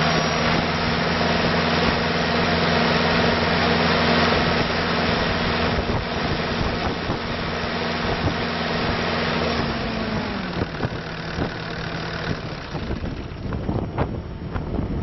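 Bobcat T770 tracked skid steer's diesel engine running steadily at high revs, then throttled down to idle about ten seconds in. A rushing hiss over the engine cuts off about two seconds later, leaving a quieter idle.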